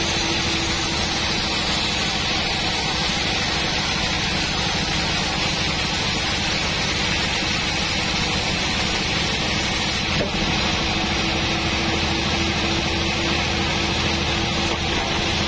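Large sawmill band saw running steadily, its blade ripping a board off a teak log on the carriage.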